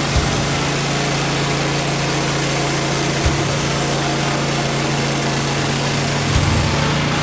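Sawmill engine running steadily at speed under a dense, even noise, with a few short knocks.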